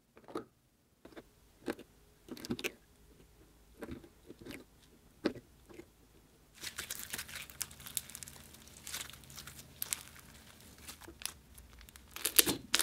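A few light clicks and taps as a plastic slime jar is opened. Then, from about halfway, continuous crackling and crunching as clear slime packed with large iridescent sequins is stirred with a wooden stick and pressed by hand, loudest near the end.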